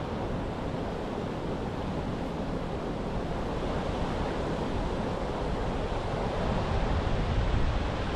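Steady rushing of creek water pouring over small waterfalls and through rapids.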